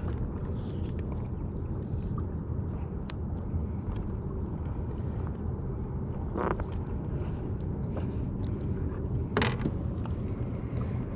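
Steady low wind-and-water rumble on a small fishing boat, with two short splashy bursts, a little past the middle and again about three seconds later, as a hooked fish is brought to the boat.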